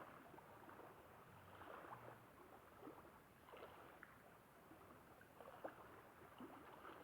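Faint lapping of small waves along the shore, with scattered light splashes and ticks.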